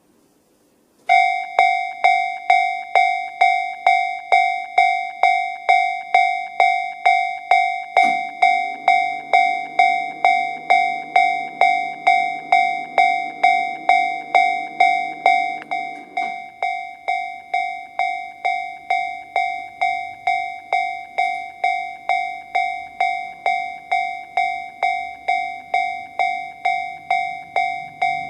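Japanese railway level-crossing alarm (Toho Denki TA3-VR alarm sound generator playing the Tobu 'sound C' tone) starting up about a second in: an electronic bell-like ding repeating about twice a second. Around the middle a click and a low whir of the crossing barrier lowering run for several seconds; once the barrier is down, the alarm continues at a lower volume.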